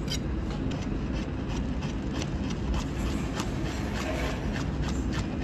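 Chef's knife slicing small peppers on a cutting board: quick, light taps of the blade hitting the board, about three or four a second, over a steady low background hum.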